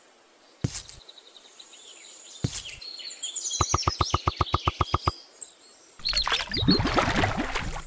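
Small birds chirping, with two sudden knocks early on and a fast, even run of about fifteen clicks midway. Near the end comes a splashy gurgle as a miniature watering can is dipped into water to fill it.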